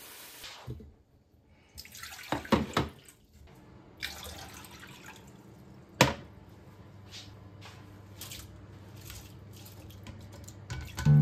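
Kitchen handling sounds while preparing red lentils: a few quick clinks and knocks of a glass and mesh strainer, then one sharp knock as a glass is set down on the glass-ceramic hob about six seconds in. After it come faint water sounds, with small splashes and drips as the wet lentils and water are handled at the saucepan.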